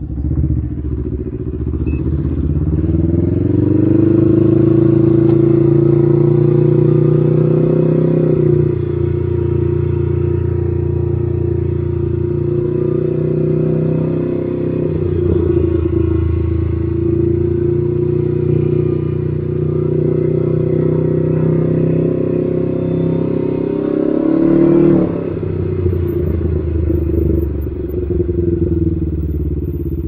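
Can-Am Ryker 600 with an RLS Carbon Series exhaust, its Rotax 600 ACE two-cylinder engine pulling away under way. The exhaust note climbs over the first few seconds and holds, then drops back about eight seconds in. It pulls up again, with another rise and drop near the end.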